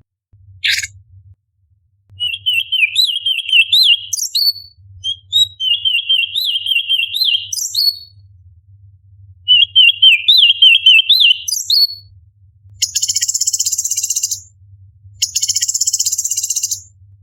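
Orange-bellied leafbird singing: three quick warbling phrases of up-and-down whistled notes, each ending in sharp rising notes, followed near the end by two longer harsh, rasping chatters.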